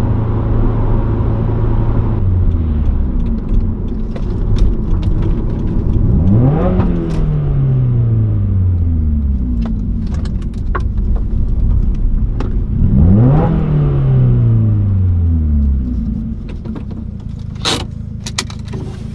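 2015 Subaru WRX's turbocharged flat-four exhaust with a Nameless muffler delete, the engine note falling off, then twice jumping up sharply and winding slowly back down.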